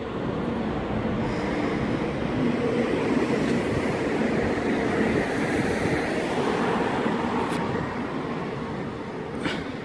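Twindexx Vario double-deck regional train pulling out and passing close by: a steady rumble of wheels on rails that builds in the first second, holds, then eases off near the end. A short sharp sound is heard just before the end.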